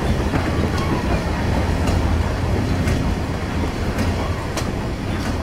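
Narrow-gauge passenger train running slowly, heard from aboard the carriage: a steady low rumble of wheels on rails with scattered sharp clicks about a second apart.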